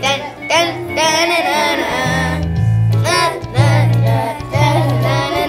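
Children's song: children singing over an instrumental backing track, with low bass notes coming in about two seconds in.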